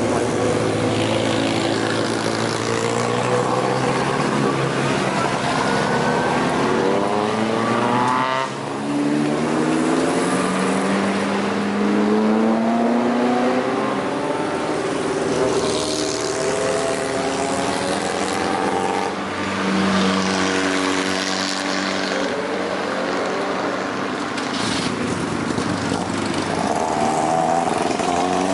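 Rally and hill-climb cars passing one after another in a line, several engines overlapping, their pitch rising and falling as each car accelerates and goes by.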